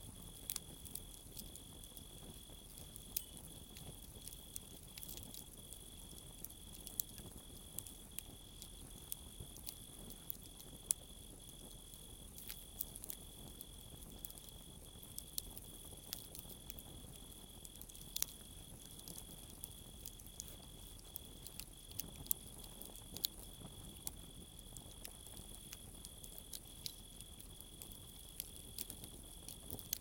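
Wood campfire crackling, with scattered sharp pops throughout, over the steady high trill of crickets.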